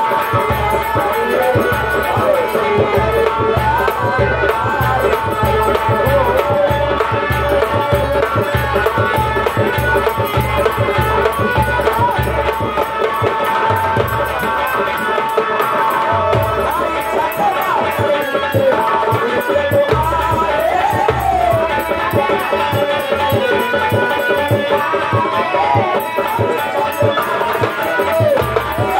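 A singer sings a Hindi devotional prayer song in a wavering melodic line over a steady, pulsing drum accompaniment.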